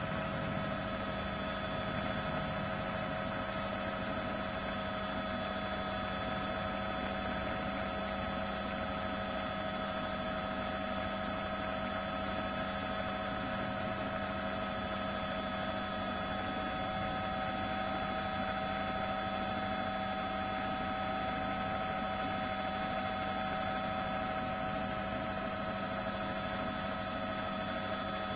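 News helicopter's turbine and rotor noise heard from on board: a steady drone with several held whining tones over a hiss.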